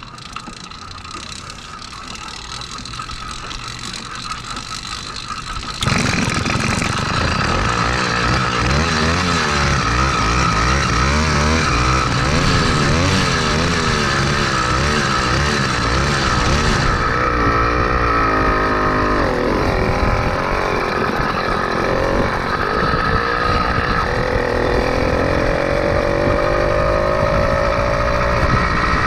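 Two-stroke motorized-bicycle engine fitted with a speed carburetor and stock intake. After about six seconds of quieter rolling and mechanical noise, it fires suddenly and runs, its pitch rising and falling as the throttle is worked.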